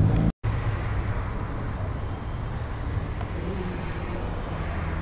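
Ferrari F430's 4.3-litre V8 idling steadily through its sport exhaust, a low even rumble. A louder rev is cut short by a brief dropout near the start.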